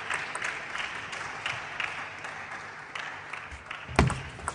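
Spectators applauding and clapping, the clapping thinning out and growing quieter toward the end. A single sharp, loud knock about four seconds in.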